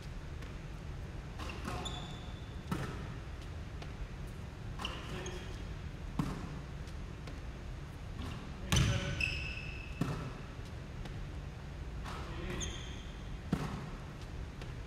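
Basketballs bouncing on a hardwood gym floor, a sharp thud every one to two seconds with the echo of a large gym behind each, and a few short, high sneaker squeaks on the hardwood.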